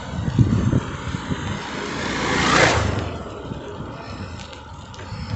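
A road vehicle passes close by, its noise swelling to a peak about two and a half seconds in and then fading away, over a low, uneven wind rumble on the microphone of the moving bicycle.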